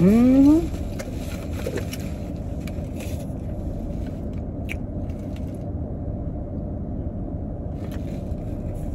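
A short rising hum from a woman's voice at the start, then the steady low rumble of a running car heard from inside the cabin, with a few faint clicks near the middle.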